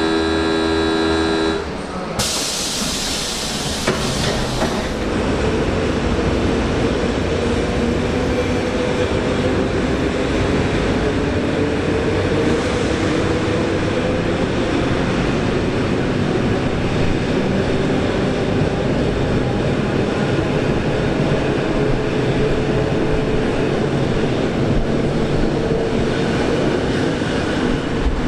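EN57 electric multiple unit pulling away. Its horn sounds a steady chord for about a second and a half, then there is a short hiss of air, then steady running noise with a motor whine that creeps slowly up in pitch as the train gathers speed.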